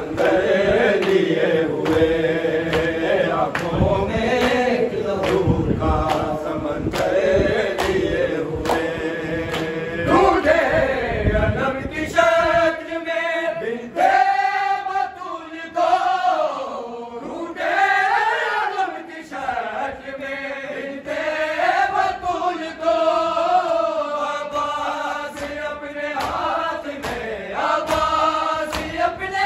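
A group of men chanting a noha (Shia lament) together, with the steady slap of hands beating bare chests (matam) in time. About twelve seconds in, the beating thins to occasional strikes and the sung line rises and falls more clearly.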